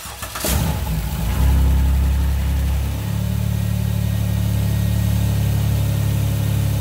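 2010 Dodge Grand Caravan's 3.3 L V6 starting on its newly replaced starter motor: a brief crank, and the engine catches within about a second. It flares up, then settles into a steady idle about three seconds in, running with further faults that can be heard, by the mechanic's account.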